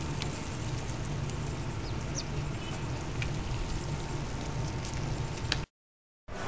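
Steady outdoor background noise with a low rumble and a few faint high chirps. It drops out to silence for about half a second near the end.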